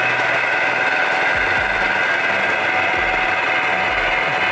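Snowmobile engine in a scooter frame running at a steady high speed, clearing out fuel after being flooded by a stuck-open carburetor.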